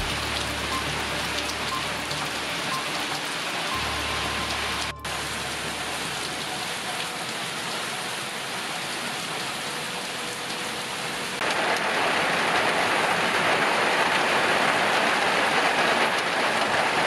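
Heavy hurricane rain falling steadily on pavement and lawns. It drops out for a moment about five seconds in, then grows louder and denser a little past halfway as a heavier downpour.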